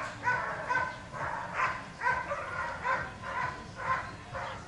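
A Dobermann barking repeatedly in a steady run of sharp barks, about two a second.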